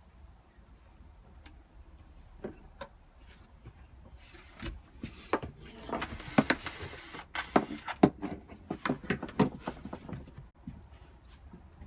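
Hands working with tools and small parts, making irregular clicks and knocks. They are sparse at first, then come in a quick, louder clatter through the second half.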